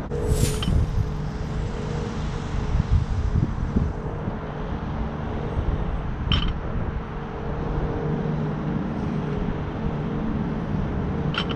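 Steady outdoor rumble of distant road traffic with a faint steady hum, broken by a few brief sharp ticks: one at the start, one about six seconds in and one near the end.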